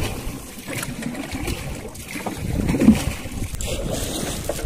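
Wind buffeting the microphone over water lapping and splashing around a small paddled canoe, with a brief louder bump about three seconds in.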